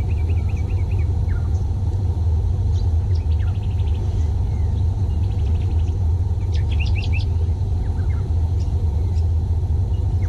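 Birds chirping and trilling in short calls over a steady low rumble. A quick cluster of chirps comes about six and a half seconds in.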